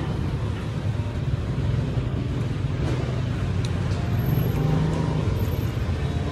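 Steady street traffic noise: a continuous low hum of motor vehicle engines running nearby.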